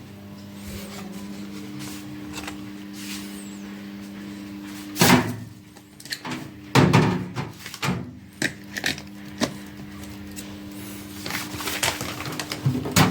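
Microwave oven humming, then a loud clunk about five seconds in as the hum stops. Several knocks and clatters follow, and the hum starts again near the end.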